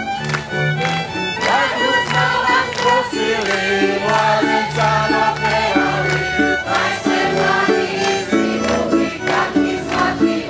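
Croatian folk dance music: voices singing over string instruments, with a bass note repeating in a steady rhythm.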